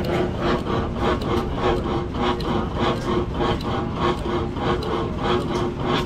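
Large antique hit-and-miss stationary engine with twin flywheels running, a steady clatter of about three beats a second.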